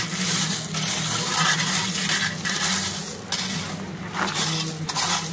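Loose gravel crunching and clinking as a rake is dragged through it and feet step on it, in an irregular run of small scrapes.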